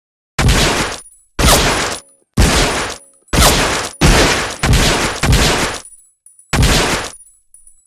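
Colt M1911A1 .45 ACP pistol firing a series of single shots. They come about a second apart, more quickly in the middle, and the last follows a short pause. Each shot is a sharp report with a short ringing tail.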